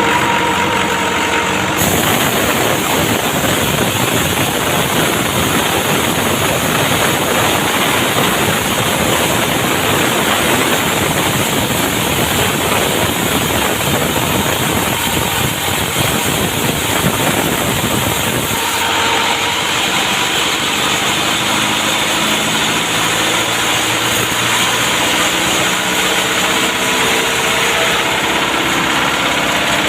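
Two-stroke chainsaw engine running hard, then dropping to a lower, unsteady idle about two-thirds of the way in.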